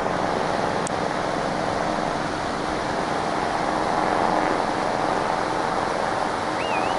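Leonardo AW189 coastguard rescue helicopter hovering close by: a loud, steady rush of rotor and turbine noise.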